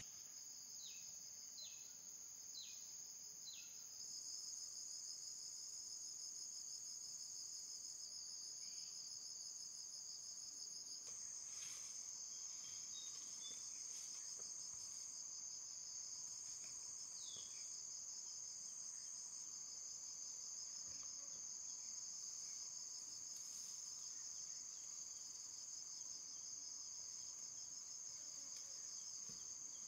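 A steady, high-pitched chorus of insects trilling without a break, with four short falling chirps in the first few seconds and one more about halfway through.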